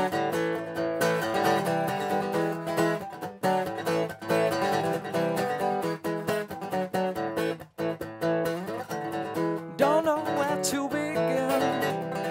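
Instrumental break in a song: strummed acoustic guitar chords carry on steadily, with a brief drop-out about eight seconds in. A wavering melody line comes in near ten seconds.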